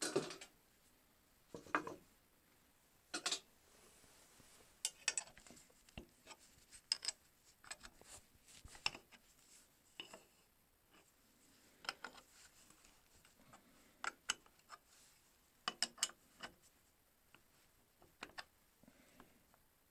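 Scattered clicks, light knocks and scrapes of steel parts being handled as the pivoting base plate and hinge bracket of a homemade miter saw are turned and set on a wooden board. The loudest knock comes right at the start, and there is faint rubbing between the clicks.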